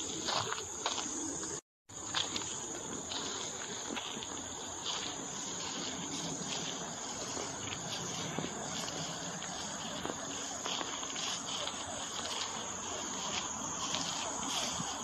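Insects chirring in a steady, high-pitched chorus, with the light ticks of footsteps on a park path running through it. The whole sound drops out for a moment about two seconds in.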